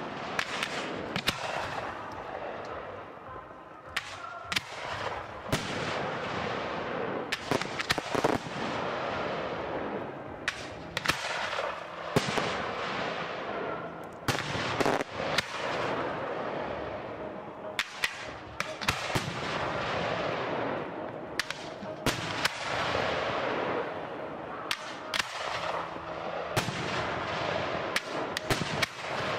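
Aerial firework shells bursting in a professional display: a steady succession of sharp bangs, roughly one to two a second, over a continuous wash of rumble and echo.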